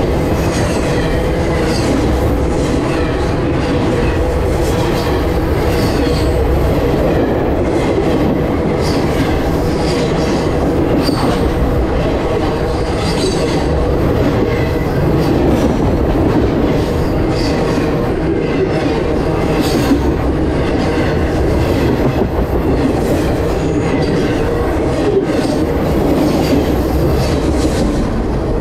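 CSX freight train cars rolling directly over a camera lying on the track: a loud, steady rumble and rattle of wheels and undercarriage, with many sharp clacks of wheels over the rails.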